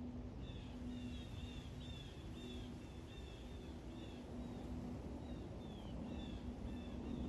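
A bird chirping over and over, short downward-sliding notes about two a second, over the low, steady rumble of a jet airliner passing overhead.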